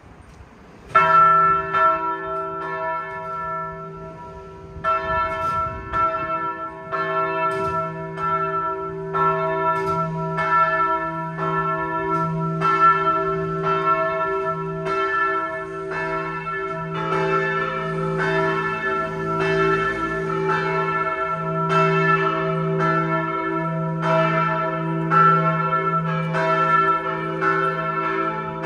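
Church bells of the Altlerchenfeld parish church ringing a partial peal of five large bells cast by Pfundner in 1961, tuned a0, b0, c♯', e' and a'. The first strike comes about a second in, more bells join about five seconds in, and they then ring together in a steady, overlapping peal.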